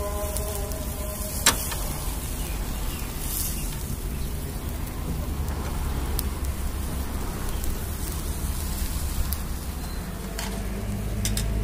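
Mutton tikka skewers sizzling over a charcoal grill: a steady hiss with a few sharp clicks, the loudest about a second and a half in, over a low rumble.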